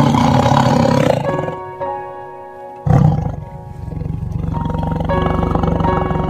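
Jaguars snarling and roaring: a loud snarl about a second long at the start, another about three seconds in, then a low pulsing growl, over background music.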